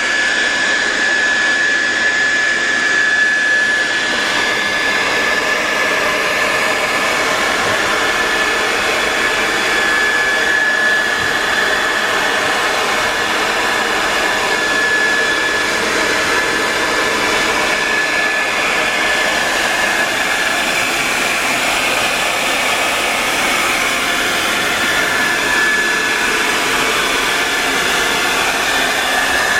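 Handheld hot-air blower running steadily, a loud rush of air with a steady high whine, heating a phone screen to soften the adhesive holding it in the frame.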